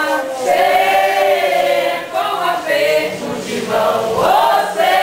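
A group of voices singing together, holding long notes and sliding between pitches.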